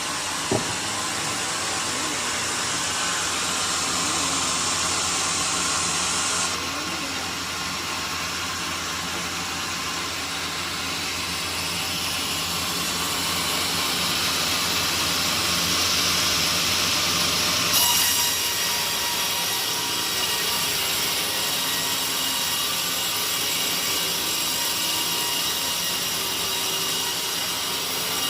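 Sawmill saw cutting through a teak log: a steady, noisy whir whose tone shifts abruptly twice, about six seconds in and again near eighteen seconds.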